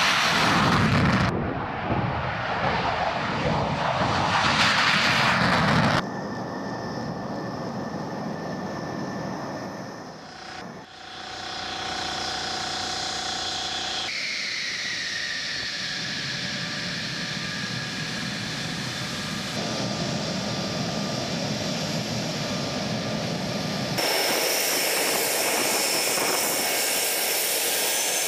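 Fighter jet engines across several cuts. First comes the loud, rushing noise of an F-16's turbofan at full afterburner on takeoff for about six seconds. Then comes the quieter steady running and turbine whine of taxiing jets, with a whine that falls in pitch about fourteen seconds in and higher whine tones near the end.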